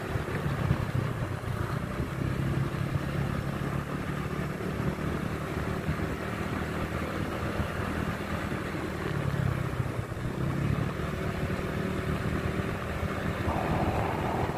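Motorcycle engine running steadily while riding along a road, its low hum holding an even pitch.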